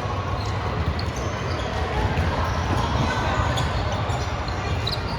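Volleyball bouncing on a gym floor over a steady din of the hall.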